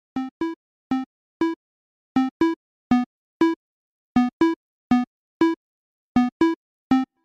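Background music: short staccato synthesizer notes on two alternating pitches, in a repeating phrase of four notes about every two seconds, with silence between the notes.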